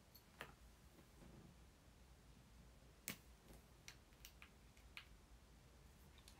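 Near silence broken by a handful of faint, short clicks and taps at uneven intervals, the loudest about three seconds in: a pen tapping on paper and desk while writing by hand.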